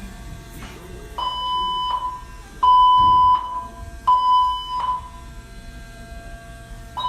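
Building fire alarm sounding: three steady high beeps, each under a second long, then a pause, and a fourth beep starting near the end. This is the repeating three-beep evacuation pattern.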